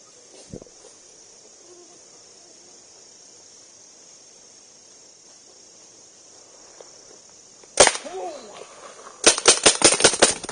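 Paintball markers firing: one sharp shot about three-quarters of the way in, then a rapid string of about eight shots in just over a second near the end. Crickets or other insects keep up a steady high chirring throughout.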